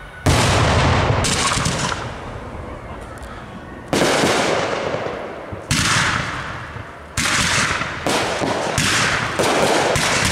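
Aerial fireworks going off: about eight sharp bangs in ten seconds, the first the loudest, each trailing off in a hiss over a second or so.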